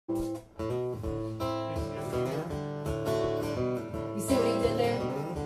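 Live band playing, with strummed guitar to the fore over drums.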